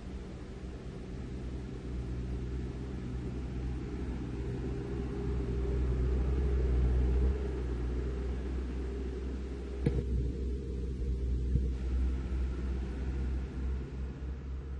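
Heavy diesel trucks driving past slowly: a low engine rumble that builds over the first seven seconds and then eases, with a sharp knock about ten seconds in.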